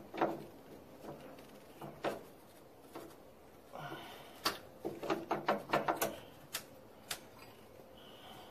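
Light metal clicks and clinks from a washer and hairpin clip being fitted onto the deck lift bracket of a Craftsman GT18 garden tractor, with a quick run of clicks about four to six seconds in.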